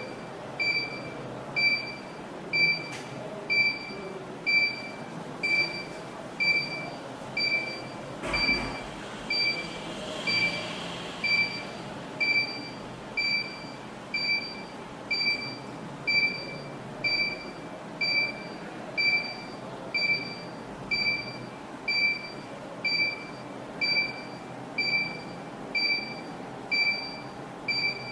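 Active 108 burglar alarm panel beeping at a steady rate of about one short high-pitched beep per second, signalling that zone 1 has been activated in night mode. A single click comes about eight seconds in.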